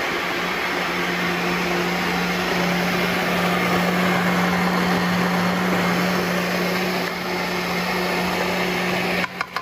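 Elba electric blender running steadily at speed, grinding chillies and tomato into a thick sambal paste, with a constant motor hum. The sound dips sharply twice near the end.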